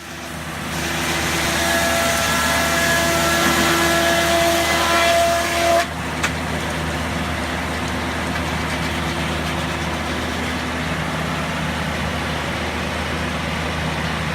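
Sawmill machinery running with a steady engine drone. A higher whine over it for the first six seconds drops away suddenly, a single click follows, and the drone runs on.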